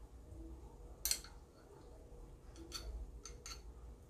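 Light clicks of a metal fork, about five short taps as pickled baby onions are picked up and set on the pizza: one about a second in, four more in the second half.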